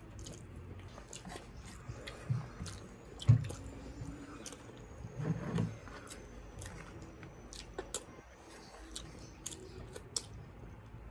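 Close-up chewing and lip-smacking of people eating chicken by hand, with many small wet mouth clicks. A few dull thumps are heard, the loudest a little over three seconds in.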